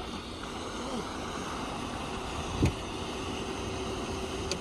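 Paddlewheel aerator in a shrimp pond running: a steady churning wash of water with a steady hum joining about two seconds in, and one short thump near the middle.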